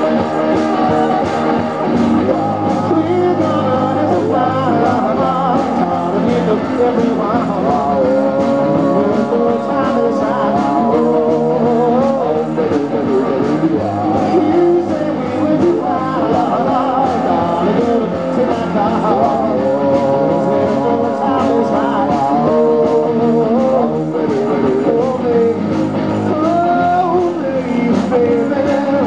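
Live garage rock band playing: loud, distorted electric guitars over a steady drum beat, with singing on top.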